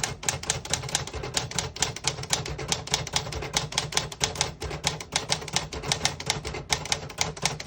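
1977 Underwood 319 manual portable typewriter being typed on: a steady run of rapid type-bar strikes, about six a second, with no skipping or sticking keys.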